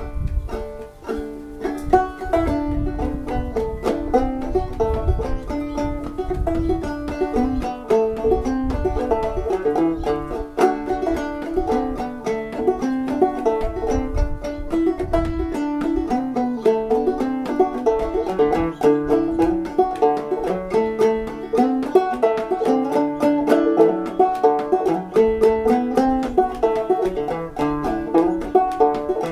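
Banjo played clawhammer style: an old-time fiddle tune picked as a steady, lively run of plucked notes and brushed strums. A low irregular rumble sits under the playing through the first half.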